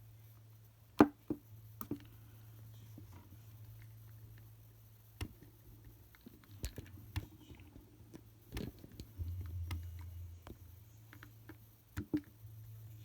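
Protective plastic film being peeled off a new digital multimeter, with scattered sharp clicks and taps of handling the plastic meter; the loudest click comes about a second in.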